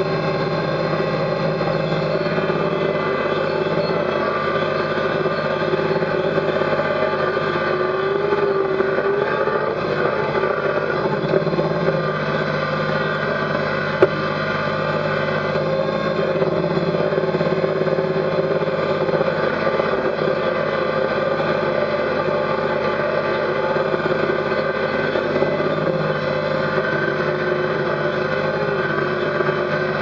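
Kubota BX compact tractor's three-cylinder diesel engine running steadily at a constant speed, heard from the operator's seat, with one sharp click about halfway through.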